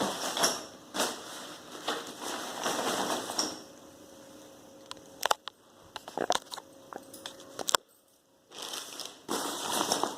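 A Wildcraft Rohdas65 hiking rucksack being handled: fabric rustling and crinkling, then a run of sharp clicks around the middle, and rustling again near the end.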